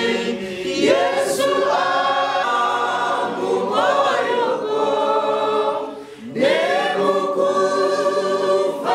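A church congregation of men and women singing a hymn together, with a brief pause for breath just before six seconds in before the next line begins.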